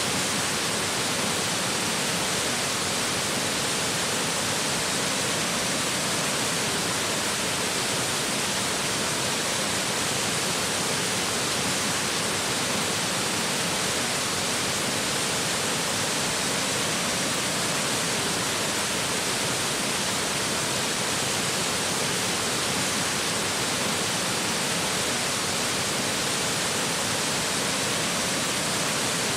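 Steady rushing of Powderhorn Falls, a waterfall's falling water making an even hiss with no change.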